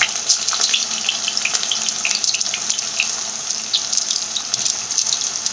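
Smashed, skin-on boiled baby potatoes deep-frying in hot mustard oil in a wok: a steady sizzle with constant small crackles and pops.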